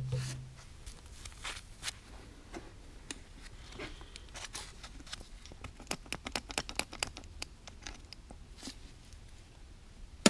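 Scattered light clicks and clinks of tools and small metal parts being handled, with a quick run of clicks about six to seven seconds in and a sharp knock near the end. A low machine hum dies away just at the start.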